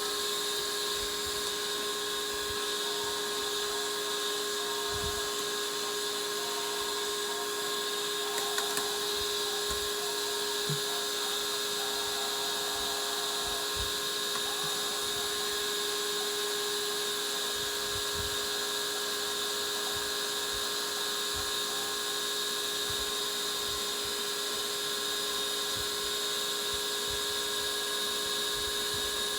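Small electric motor running steadily with an even, high-pitched whine that does not change speed.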